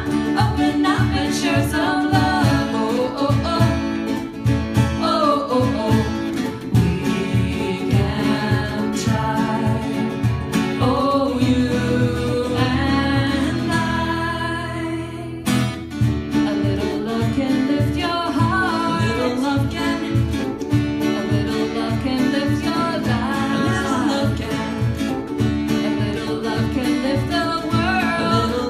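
A song performed live: singing over instrumental accompaniment with a steady beat. The music thins briefly about halfway through, then comes back in full.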